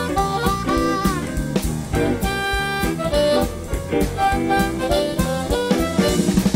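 Live blues band: an amplified harmonica plays a lead line with bent notes over drum kit, bass and keyboard.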